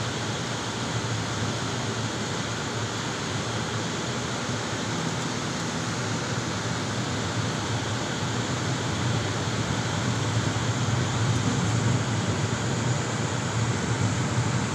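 Steady road noise inside a moving car: a low tyre and engine rumble with wind hiss over it, growing a little louder over the last few seconds.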